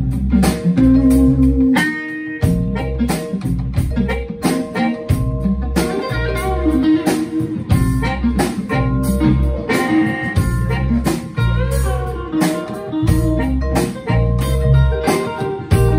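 Live blues band jamming: electric guitar, harmonica, vibraphone, upright bass, drum kit and hand percussion playing together over a steady beat.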